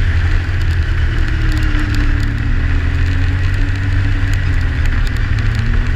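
Yamaha Sidewinder snowmobile cruising on a groomed trail: its turbocharged three-cylinder engine runs steadily at an even pitch under the hiss and rattle of the track on snow, loud and close.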